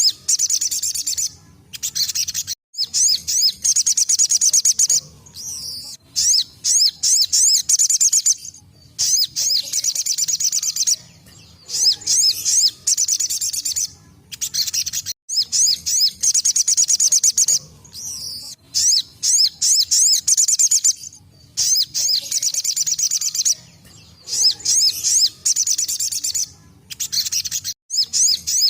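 Crimson sunbird (sogon) singing its 'tembakan' song: about a dozen bursts of very fast, high trilling, each one to two seconds long, separated by short pauses.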